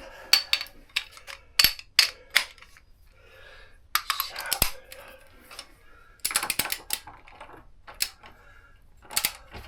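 Metal hand tools clinking and clicking in uneven bursts of sharp knocks, as a short socket extension is fetched and fitted to a torque wrench and socket.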